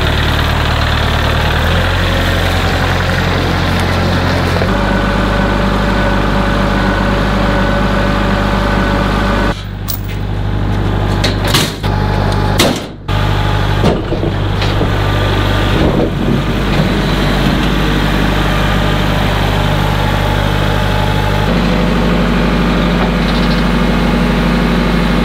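Kubota L4701 tractor's diesel engine running steadily, its pitch changing a few times. Between about ten and sixteen seconds in, several sharp metal clanks and rattles come from the steel mesh trailer ramps being handled.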